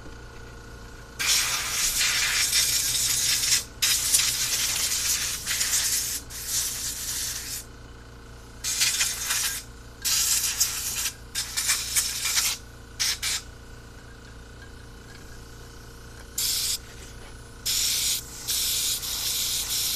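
Pressurized spray hissing in bursts into a carburetor's passages as it is cleaned. One long spell of several seconds comes first, then shorter blasts, then two more near the end.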